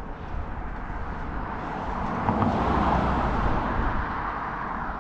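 A car passing by, its noise swelling to a peak about halfway through and then fading, over a steady low rumble.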